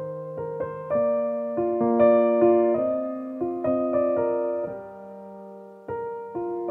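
Background music: a slow, gentle piano melody, its notes struck one or two at a time and left to ring out.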